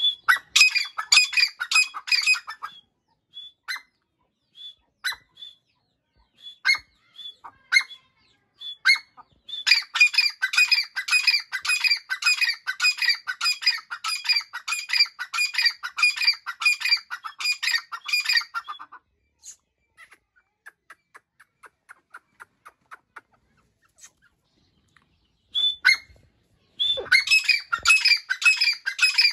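A grey francolin pair calling: bursts of loud, rapidly repeated harsh notes, the longest run lasting about nine seconds, with single short calls and quieter gaps between.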